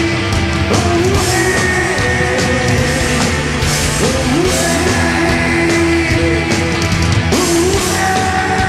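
Live rock band playing an instrumental passage: lead electric guitar playing sustained, bending notes over distorted rhythm guitar, bass and drums.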